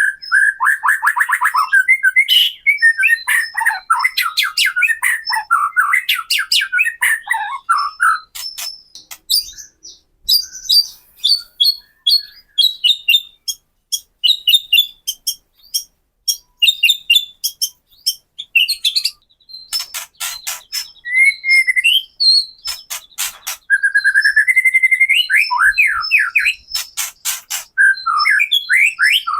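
White-rumped shama singing: fast crackling rattles of 'kretek' notes mixed with whistled trills and phrases, in bursts with brief pauses.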